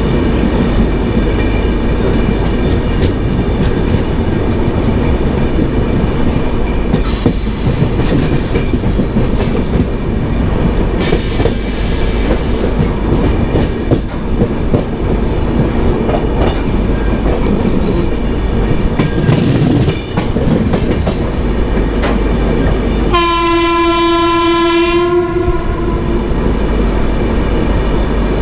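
Express train running on the rails, heard from inside a passenger coach as a steady rumble of wheels on track. The locomotive's horn sounds once for about two seconds near the end.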